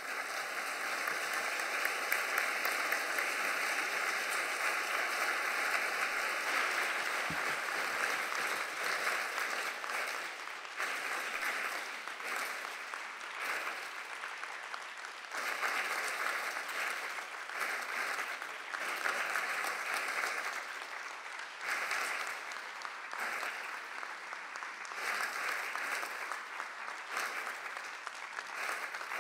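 Audience applauding: sustained clapping that swells and eases in several waves.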